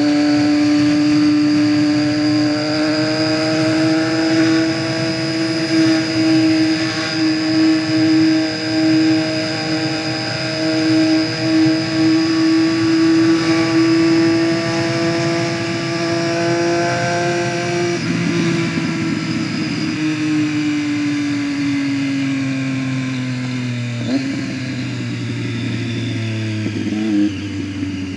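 Motorcycle engine running under way at a steady, high pitch that creeps slightly upward, then the pitch sinks after about two-thirds of the way as it slows, with abrupt pitch steps near the end.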